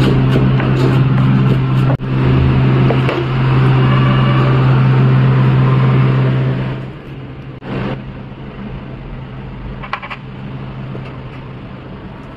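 A loud steady hum with a row of sharp knife taps on a chopping board in the first couple of seconds; the hum cuts out about seven seconds in, leaving a quieter even hiss of running tap water.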